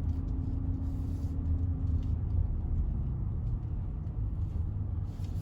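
Range Rover driving, heard from inside the cabin: a steady low engine and road rumble, with a faint held hum over the first two seconds or so.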